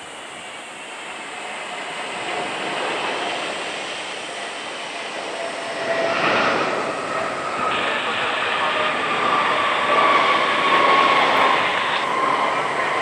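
Jet airliner's engines growing steadily louder as it passes close by: a broad rushing noise with several whining tones that slide slowly down in pitch, getting louder about halfway through.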